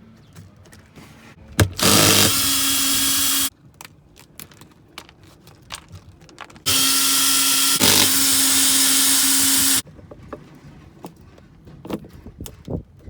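Power drill/driver running in two steady bursts, a short one about two seconds in and a longer one of about three seconds in the second half, with small clicks and knocks of handling between them.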